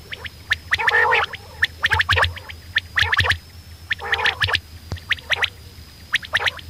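Quail calling: quick runs of short, sharp clicking notes, with a few longer, rough, gurgling calls about one, three and four seconds in.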